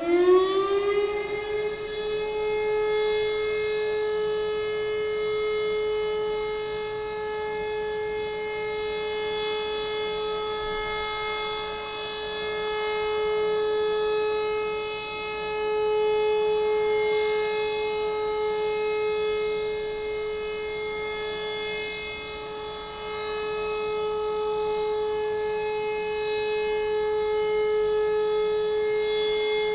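Civil defence siren sounding the all-clear as one continuous steady tone. It finishes winding up to pitch about a second in, then holds that tone, swelling and dipping a little in loudness.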